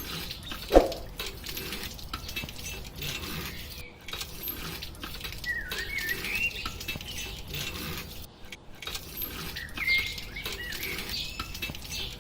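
Bird-like chirps with scattered small clicks and taps, and one loud sudden knock about a second in.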